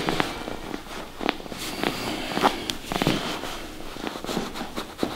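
Irregular series of short, sharp clicks and small pops from hands-on chiropractic manipulation: joints cracking and the handling of the patient's body.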